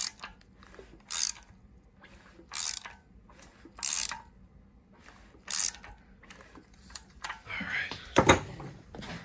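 A socket ratchet turning an LQ9 V8's crankshaft over by hand, to bring the lifters up: a short burst of ratchet clicks with each back-stroke, about every second and a half. Near the end a clatter and a hard knock of a metal tool set down on a workbench.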